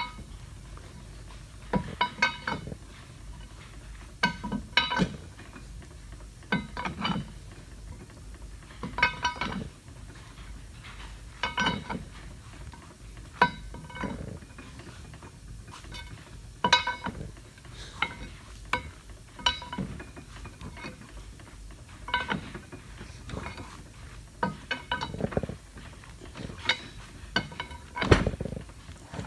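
Steel valve bar clanking against a 2x2 plug valve's retainer as the retainer is turned down into the valve body. Short ringing metal clanks, often two close together, repeat every two seconds or so.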